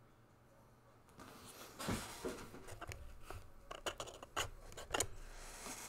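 Small handling noises at a desk: faint rustling and scraping with several sharp clicks, starting about a second in, the loudest click about two seconds in.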